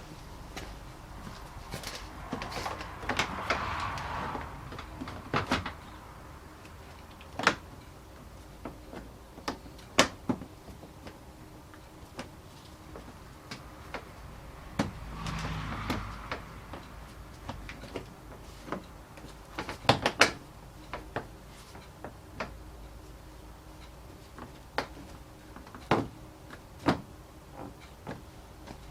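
Scattered sharp clicks and knocks of hand work on a car's plastic front bumper cover as it is refitted, with two stretches of scraping rustle, one near the start and one about halfway.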